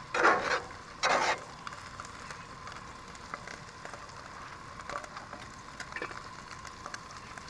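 Trout frying in melted butter in a pan, sizzling with small crackles. Two loud rushing bursts come in the first second and a half.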